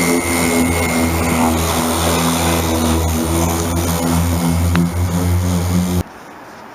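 An electric power sander running steadily, its motor giving a loud, even hum, while sanding paint off a fiberglass boat hull. The sound cuts off suddenly about six seconds in.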